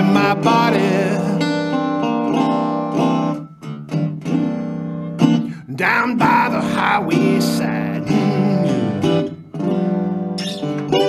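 National ResoRocket resonator guitar played slide-style in a delta blues instrumental break, with notes that slide between pitches and short pauses between phrases.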